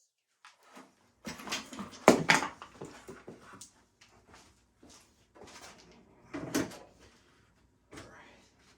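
Irregular knocks and clatter of tools and metal parts being handled while a Yamaha DT360 motorcycle is taken apart, loudest about two seconds in and again past six seconds.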